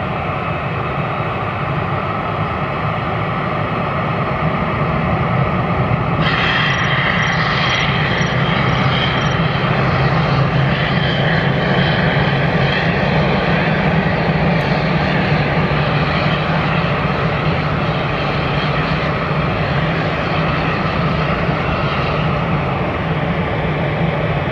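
Airbus A320-214's CFM56 jet engines running steadily as the airliner taxis, a continuous low hum with engine noise. A higher whine joins suddenly about six seconds in and stays.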